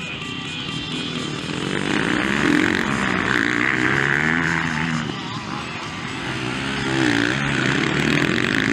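Motocross bikes revving hard as they ride past, the engine pitch rising and falling with each throttle change. It swells louder about two seconds in and again near the end.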